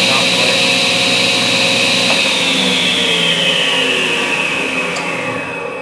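Table saw running without cutting, its motor and blade giving a steady whine; about two seconds in it is switched off and spins down, the whine falling in pitch and fading.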